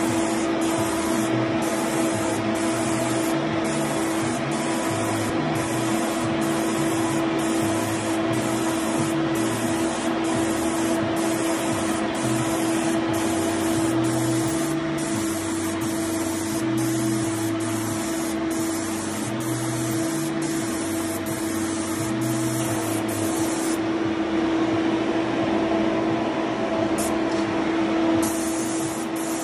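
Graco FinishPro air-assisted airless sprayer spraying lacquer through an FFLP 208 fine-finish tip: a continuous hiss of atomized spray over a steady machine hum. The highest part of the hiss drops away for a few seconds near the end.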